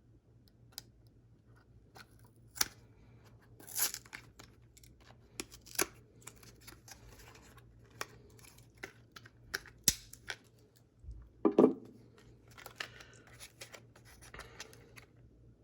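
Knife packaging being opened and handled: tearing and crinkling of the wrapping, with scattered sharp clicks and small knocks, the loudest a dull knock about eleven and a half seconds in.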